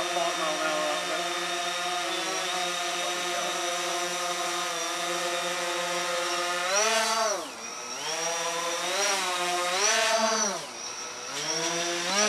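Quadcopter drone hovering close by, its propellers giving a steady buzzing whine. About seven seconds in and again near ten and a half seconds the pitch drops sharply and climbs back as the motors throttle down and up while it manoeuvres.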